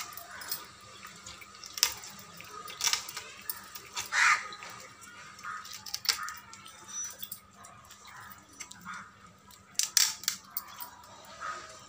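Fish scales being scraped off a whole wet fish against an upright fixed cutting blade (boti): short, sharp, wet scraping strokes at irregular intervals, a second or a few seconds apart.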